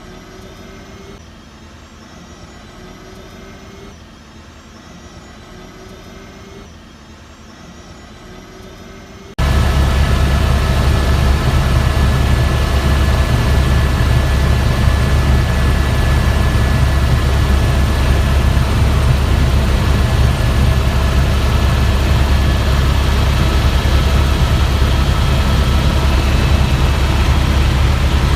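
Helicopter noise: a quieter hum with a short rising tone repeating every few seconds, then, about nine seconds in, an abrupt switch to the loud, steady rumble and whine of the helicopter in flight.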